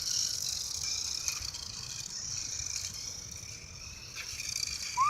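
Remote-control toy car running, its small electric motor whining and shifting in pitch as it speeds up and slows, with its wheels rattling on the pavement.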